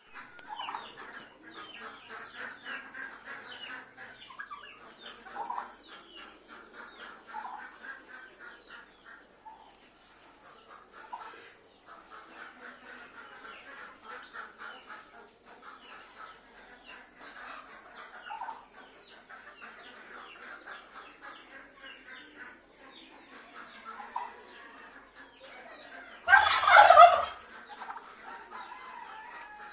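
Domestic turkeys calling in rapid, fluttering bursts, with one much louder gobble about 26 seconds in.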